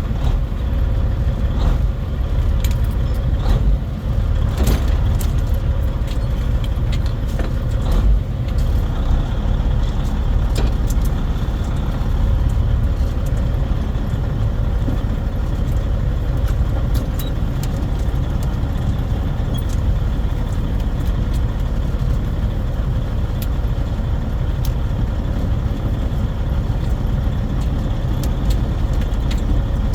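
Semi truck's diesel engine running with a steady low rumble, with scattered small clicks and jingling rattles over it, most of them in the first ten seconds.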